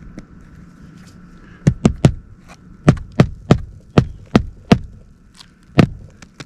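Hammer driving roofing nails through an asphalt shingle, about ten sharp blows in quick groups of three with one last strike near the end, as a removed shingle is nailed back in place.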